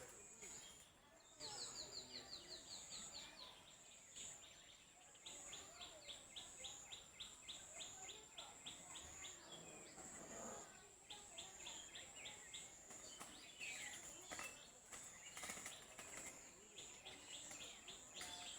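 Birds chattering back and forth in fast runs of chirps, about ten quick notes a second, breaking off and starting again several times. A steady high-pitched buzz runs underneath.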